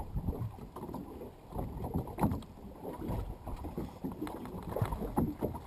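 Small boat rocking on the water: irregular low knocks and slaps of water against the hull, with some wind on the microphone.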